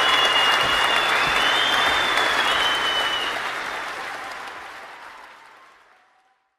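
Crowd applause with a few long high whistles over it, fading out over the last few seconds to silence.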